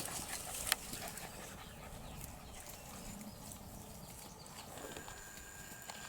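Faint sounds from Standard Poodle puppies close by, with a single sharp click under a second in.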